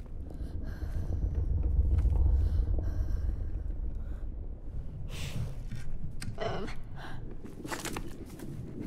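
Film sound effects: a deep rumble swells over the first few seconds and eases off. Light scuffing steps and small clicks follow, with a short breathy vocal sound partway through.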